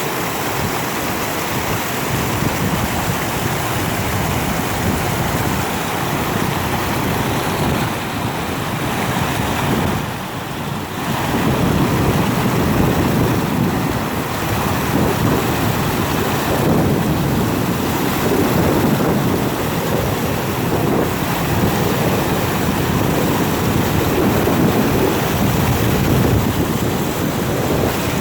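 Rushing water of a river swollen by heavy rain: a loud, steady roar that surges and eases, dipping briefly about ten seconds in.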